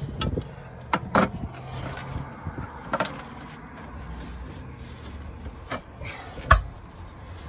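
Sharp knocks and clanks from work on a tractor tire that is stuck to its rim, the loudest strike about six and a half seconds in, over a steady low hum.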